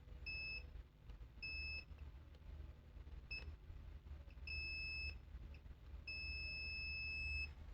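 Digital multimeter in diode mode beeping as its probes touch capacitors on the motherboard. The beep is the meter's sign of near-zero resistance, a short to ground. There are five steady high beeps of uneven length; the last, starting about six seconds in, lasts about a second and a half.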